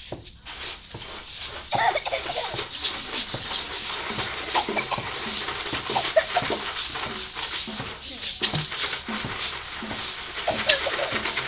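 Improvised nature soundscape played on music-room instruments: a steady, dense rattling hiss like shakers, with short animal-like squeaks and calls over it.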